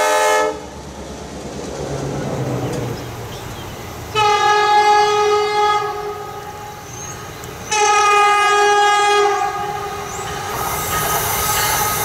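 Amtrak Acela high-speed trainset's horn sounding two long chords of about two seconds each, a couple of seconds apart, over the rumble of the rolling train. Another train horn cuts off abruptly about half a second in.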